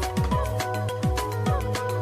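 Background electronic music with a steady beat: a deep kick drum about four times a second under held synth notes.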